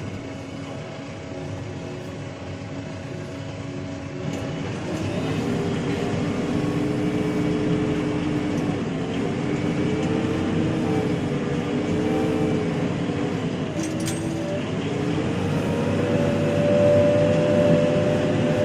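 JCB 3DX backhoe loader's diesel engine running while the machine is driven, its pitch rising about five seconds in, wavering a little, and rising again near the end as it picks up speed.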